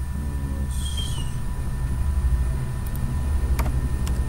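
A steady low rumble with a faint electrical whine, a brief high squeak about a second in, and a few computer mouse clicks near the end.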